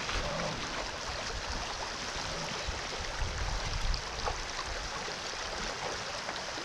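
Steady rush of a shallow river running over a gravel riffle.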